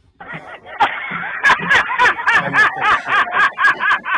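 A man laughing in fast, rhythmic bursts, about five laughs a second, starting about a second in.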